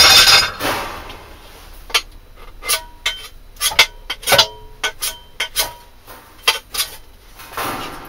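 Ferrocerium rod scraped hard with a steel edge in about a dozen short, sharp, irregular strokes, throwing sparks onto Brasso metal-polish wadding. Near the end comes a soft rush as the wadding catches alight.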